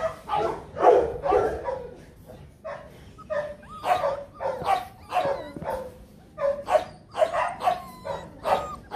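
Five-week-old Rottweiler puppies yapping, short high barks and yips repeating a few times a second, some overlapping.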